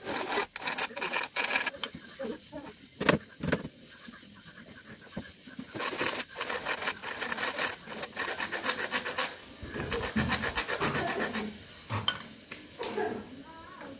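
A hand file rasping back and forth on a metal motorcycle footpeg bracket, in several runs of quick strokes with pauses between. The file is opening out a mounting hole that did not line up exactly. A couple of sharp knocks come about three seconds in.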